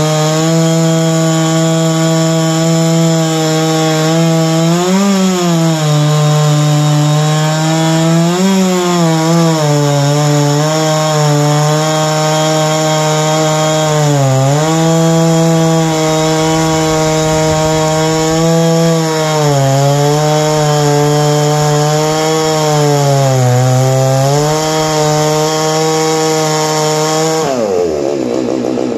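Chainsaw in a chainsaw mill ripping lengthwise through a large white oak log at full throttle, its pitch dipping briefly several times as the engine bogs under load. Near the end the revs fall away sharply as the throttle is released.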